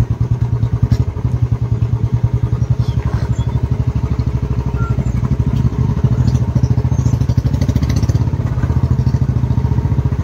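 Motorcycle engine running steadily, its exhaust pulsing evenly.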